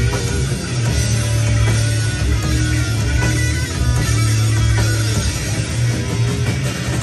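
Thrash metal band playing live: heavy electric guitars, bass guitar and drums in a dense, loud, unbroken wall of sound.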